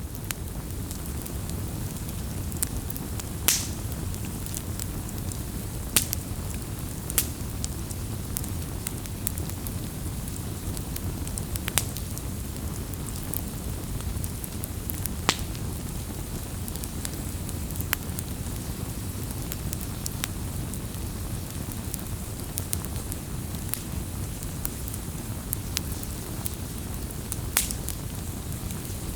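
Wood campfire burning: a steady low rumble of flame with scattered sharp crackles and pops, and a handful of louder snaps spread throughout.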